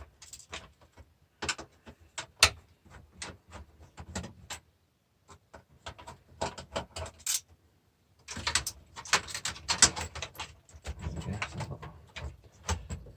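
Irregular metallic clicks, taps and clinks of a screwdriver and screws working on a DVD player's steel chassis, growing into denser clattering in the last few seconds.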